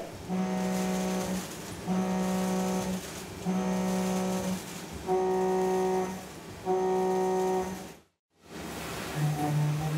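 Walter M4000 three-insert milling cutter cutting a row of slots in 42CrMo4 steel: five cuts of about a second each, each a steady droning hum, with short pauses between them. The sound cuts out briefly near the end, then a lower-pitched cut begins.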